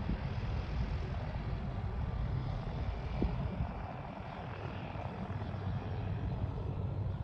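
De Havilland Canada DHC-3 Otter floatplane's engine and propeller running steadily as it moves across the water on its floats, heard as a low rumble.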